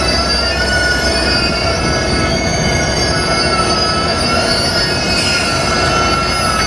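Train wheels squealing on the rails as a Union Pacific SD70ACe-led passenger train rolls slowly past close by. The squeal is a steady set of high shrill tones that waver slightly, over the train's loud running noise.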